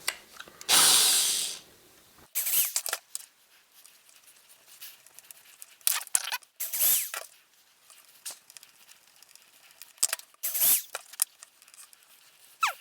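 Intermittent handling noises of tools and small parts on a workbench: short scrapes and clatters, the longest and loudest about a second in.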